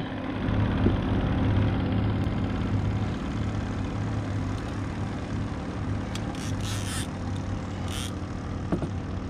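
A steady low motor drone, with a few brief high scrapes or clicks about six to eight seconds in.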